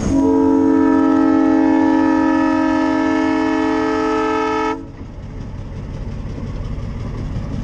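Locomotive air horn sounding one long blast of about four and a half seconds: a mellow chord of several steady tones that cuts off sharply.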